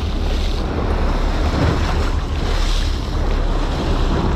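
Seawater churning and splashing against the side of a fishing boat's hull, with steady wind noise on the microphone.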